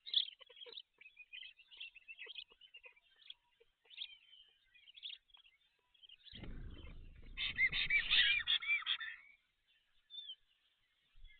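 Birds calling in rapid high chirps and squeaks, with a louder run of repeated calls over a low rumble from about six to nine seconds in.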